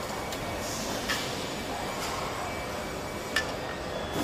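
Steady factory-floor machine noise, with a few sharp clicks about a second in and again about three and a half seconds in.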